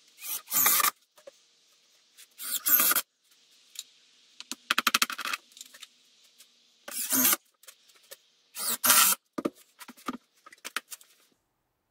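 Work-handling noise: about five short bursts of rustling and scraping, with scattered clicks and a quick run of ticks about five seconds in.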